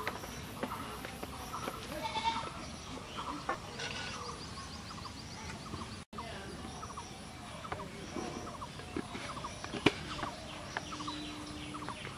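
Animal and bird calls in the background, with scattered light clicks and one sharp knock near the end.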